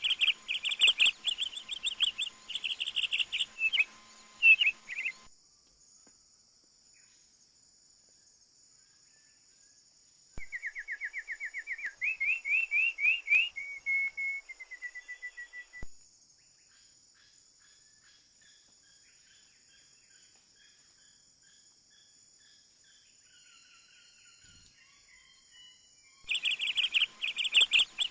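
Small birds chirping in rapid runs, with a stretch of trilled rising notes in the middle and faint scattered calls between, over a steady high insect drone. The loud chirping starts and stops abruptly twice.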